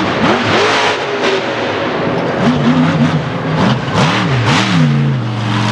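Monster truck engine revving hard, its pitch sweeping up and down in quick blips through the middle, then settling to a steady lower pitch near the end. Sharp knocks in the first second as the truck comes down over a crushed car.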